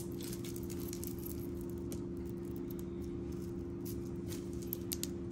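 Seed-bead necklaces and small metal jewelry pieces being handled on a paper towel: scattered faint clicks and rustles of beads, over a steady low hum.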